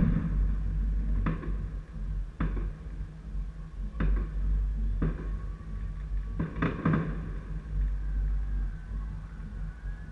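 Distant New Year fireworks going off: about half a dozen sharp bangs spread over several seconds, the loudest right at the start and a quick cluster around seven seconds in. Under the bangs runs a steady low rumble.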